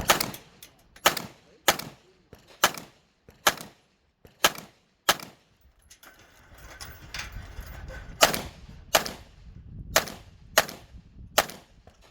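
Handgun shots in a steady string, about a dozen cracks spaced under a second apart, with a pause of about three seconds midway.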